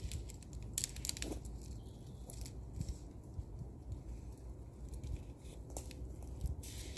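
Rustling and handling noises of a tarp and its guy line being adjusted: short crinkly rustles, a cluster about a second in and another near the end, over a low rumble.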